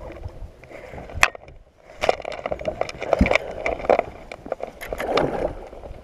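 A hooked fish splashing and thrashing at the water's surface close beside a small boat, mixed with irregular sharp clicks and knocks. There is one sharp click about a second in, then a short lull before the splashing and clicking pick up again.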